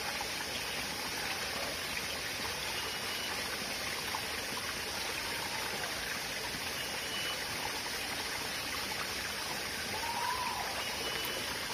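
Shallow forest stream running and trickling over rocks, a steady wash of water. A faint, falling animal cry sounds about ten seconds in.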